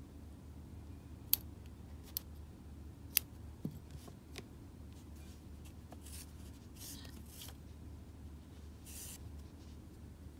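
Scissors cutting crochet yarn, with a few sharp clicks of the blades in the first seconds, followed by soft rustling of the yarn being handled.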